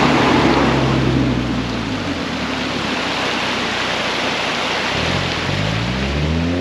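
Vehicles passing over a road bridge, heard over a steady rushing noise. One engine note falls away over the first two seconds, and another climbs in pitch as a vehicle approaches and accelerates near the end.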